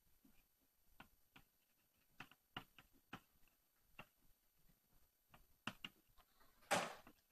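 Chalk writing on a blackboard: faint, irregular taps and ticks as the words are written, with one short, louder noise near the end.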